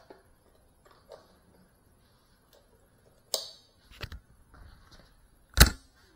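A few scattered sharp clicks and knocks, with one a little past three seconds in, two around four seconds, and the loudest near the end, over a faint steady high whine.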